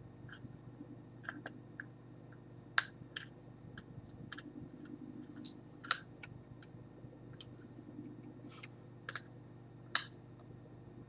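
Fingers and fingernails picking and prying at a small taped-shut plastic container, making irregular sharp clicks and taps, the loudest about three seconds in, about six seconds in and near the end.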